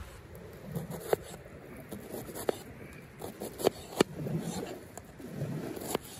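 Pocket knife slicing and dicing a peeled onion on a wooden cutting board: a few sharp knocks of the blade striking the board, with quieter cutting scrapes between.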